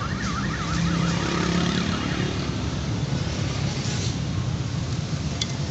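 Steady street traffic with engines running. For the first two seconds a fast warbling tone rises and falls about four or five times a second, and a short click comes near the end.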